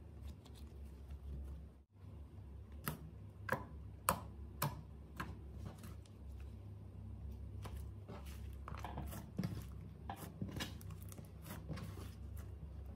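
Slime being squeezed, poked and stretched by hand, giving a series of sharp sticky clicks and small air-pocket pops, with quieter squishing between them.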